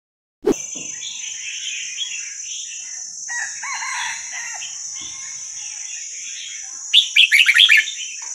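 Young red-whiskered bulbuls chattering and calling over a steady high-pitched buzz, with a loud burst of quick song notes about seven seconds in.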